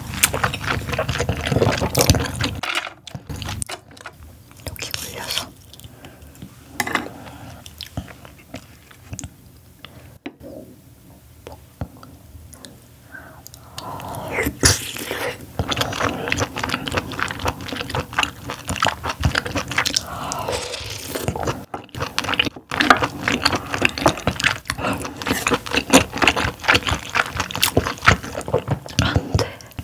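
Close-up mouth sounds of chewing steamed scallop dipped in whipped cream: a dense run of wet clicks and smacks. It goes quieter for a stretch, then a fresh mouthful about halfway through brings louder chewing.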